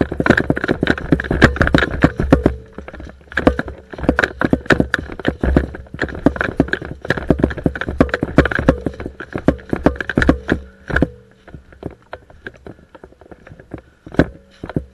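Running footsteps crunching through dry fallen leaves, with a dense clatter of rapid strikes; the footfalls thin out and slow about eleven seconds in.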